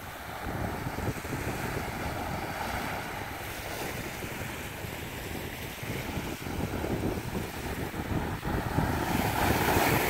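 Small ocean waves breaking and washing up the sand beach, with wind buffeting the microphone; a wave surges in louder near the end.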